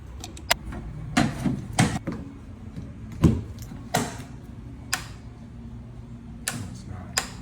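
Scattered clicks and knocks from hands working on a screen-printing conveyor dryer's switch panel, about eight in all, over a steady low hum.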